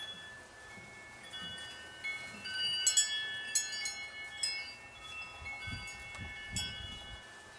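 Chimes ringing: many overlapping tones at different pitches that hang on and fade, with a few brighter strikes about three seconds in, again near four and a half, and near six and a half.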